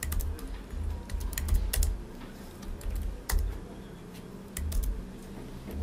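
Typing on a computer keyboard: irregular keystroke clicks, some in quick runs, with dull low thuds underneath.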